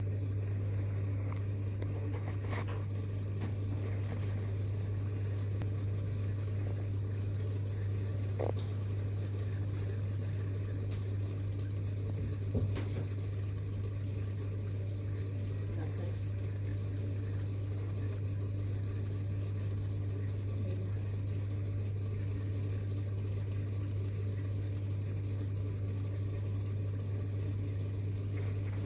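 Aquarium filter pump humming: a low, steady, unchanging hum, with a few faint clicks.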